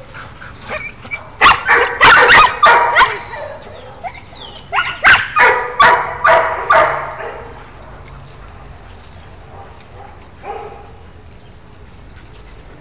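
Dogs barking at play: two runs of loud, rapid barks about 2 s and 5 s in, then a single bark near 10 s.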